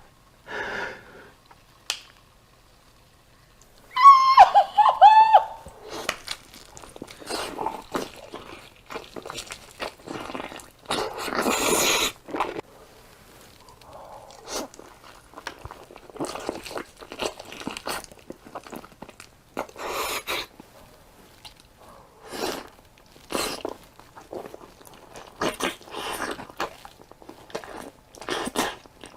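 Close-miked eating sounds: crunchy food being bitten and chewed, crackling strokes every second or so. About four seconds in comes a brief, loud, high wavering sound, the loudest thing here.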